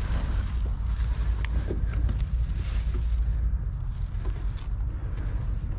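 Wind rumbling on the microphone while a loaded touring bicycle rolls over concrete paving, with a few faint clicks.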